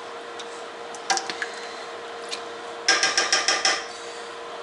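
A metal stirring spoon knocks once, then is dropped into an empty tin can and rattles against its sides in a quick run of ringing clicks, lasting under a second. A faint steady hum runs underneath.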